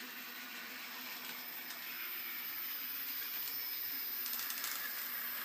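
Small electric motor of an H0-scale model tram whirring steadily, growing slightly louder, with a few faint clicks about three and a half to five seconds in.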